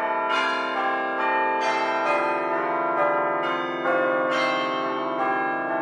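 Ringing bell tones. About seven notes are struck, one every second or so, and each rings on under the next.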